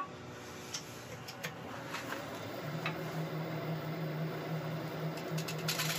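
Wood lathe running: light ticks at first, then a steady low hum sets in about two and a half seconds in. Near the end the skew's edge touches the spinning wood with a brief scratchy cutting noise.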